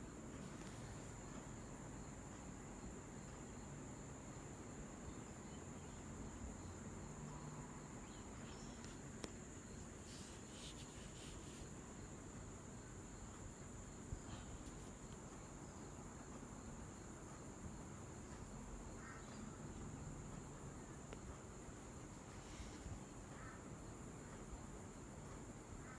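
Quiet background noise: a steady hiss under a faint, constant high-pitched whine, with a couple of faint ticks.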